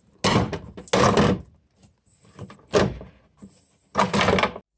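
Plastic fuel-filler flap housing and its lock assembly being pulled and worked loose by hand: four short clattering, scraping bursts of plastic.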